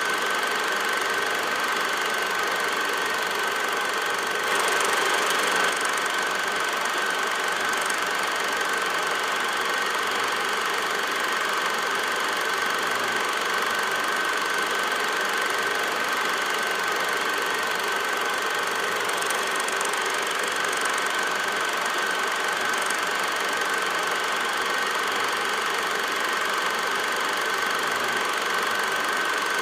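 Film projector running: a steady mechanical whir with a constant high whine, unchanging throughout.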